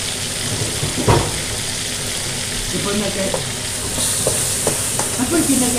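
Meat sizzling as it sautés with onion and garlic in an aluminium pot, being stirred and turned. There is one sharp knock about a second in and a few lighter clicks later on.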